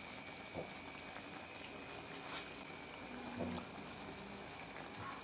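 Faint, steady bubbling of the soy-vinegar sauce of chicken and tofu simmering in a frying pan, with a few soft clicks.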